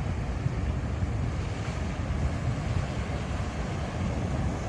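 Ocean surf washing over the rocks and spilling into a tide pool in a steady rush, with wind rumbling on the microphone.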